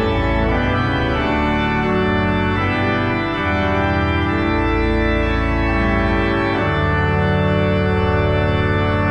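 Church organ playing slow, sustained chords over deep held bass notes, moving to a new chord every second or two.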